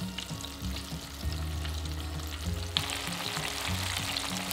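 Flour-coated chicken pieces deep-frying in hot vegetable oil in a stainless steel pan, a steady sizzling and bubbling crackle that grows louder a little under three seconds in.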